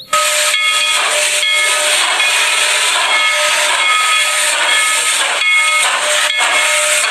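Steam locomotive letting off steam in a loud, steady hiss, with a steam whistle sounding in several short notes that come and go over it.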